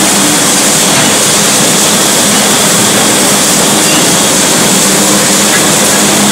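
Loud, steady workshop noise in a welding booth, an even rushing sound with a low hum under it and no distinct strikes or crackles.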